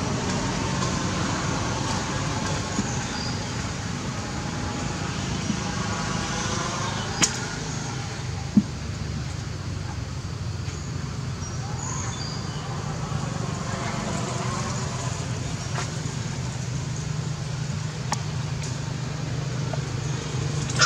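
Steady background hum with faint distant voices, broken by two short sharp clicks about seven and eight and a half seconds in.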